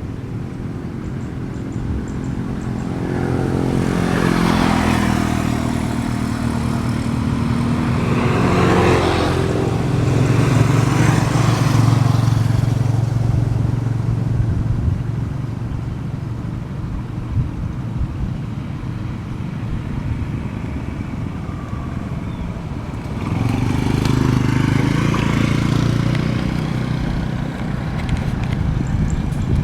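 Motor vehicles passing close by on a road. One engine swells and drops in pitch as it goes past through the first half, and another passes about three-quarters of the way through.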